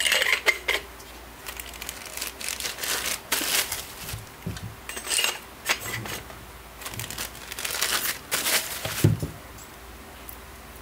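Crinkling and rustling of packaging being handled, in irregular bursts, with a light thump near the end.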